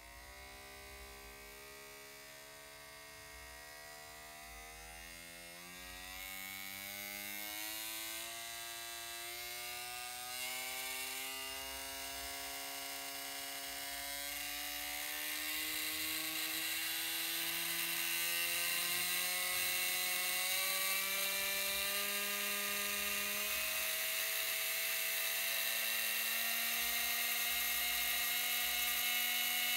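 DC motor from an old drill spinning neodymium magnets in a washing-machine drain-pump coil rigged as a generator. It whines with a pitch that rises steadily and grows louder as its supply voltage is turned up, then holds at a higher speed near the end.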